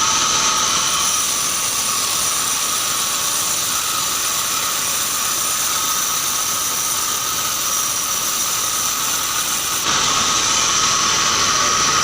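Band sawmill running with a steady, high whine. About ten seconds in, the sound grows a little louder and fuller.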